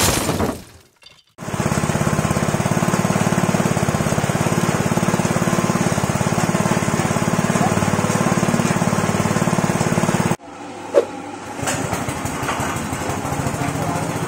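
A brief logo sound effect in the first second, then a small petrol engine running steadily as it drives a snail-grinding mill, a meat-grinder-style auger forcing field snails out as paste. Near the end the sound cuts to a quieter, lower machine hum with a single sharp knock.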